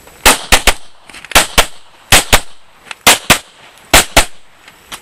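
Pistol fired rapidly, about a dozen shots in quick pairs (double taps on each target), each pair about three quarters of a second after the last. Each shot has a short echo.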